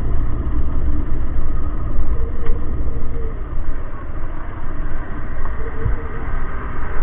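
Wind rumble and motorcycle engine noise, recorded on the built-in microphone of a helmet-mounted action camera while riding. A dense, loud low rumble that rises and falls.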